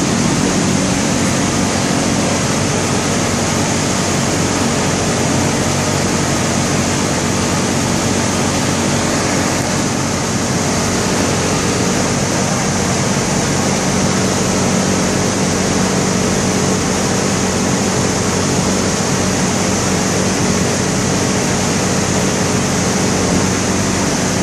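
Electric blower fan keeping a bouncy castle inflated: a loud, steady rush of air with a low motor hum under it.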